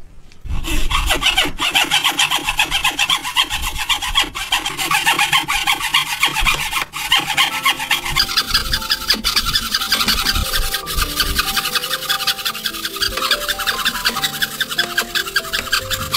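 Hand saw cutting through a wooden block in rapid, even strokes. Background music with a light melody of short notes comes in about halfway.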